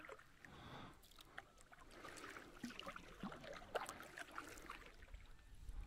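Faint water lapping and trickling around a fishing kayak, with small scattered ticks and drips.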